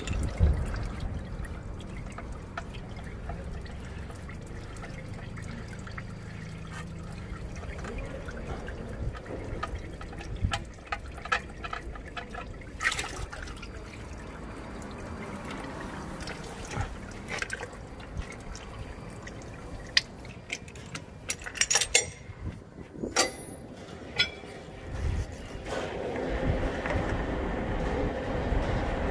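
Used engine oil pouring in a steady stream from a tractor's oil pan into a metal drain basin. A few sharp clicks and knocks are heard later on.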